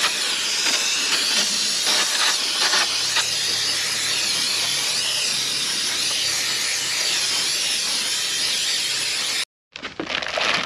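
Aerosol solvent cleaner sprayed in a long, steady hiss to clean the steering knuckle's hub bore and mounting surface before a new wheel bearing hub assembly goes in. The hiss cuts off suddenly near the end.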